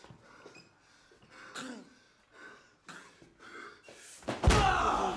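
Grunting, gasping breaths and blows landing as a man beats someone on the floor. About four seconds in, a loud heavy impact, followed at once by a loud falling cry.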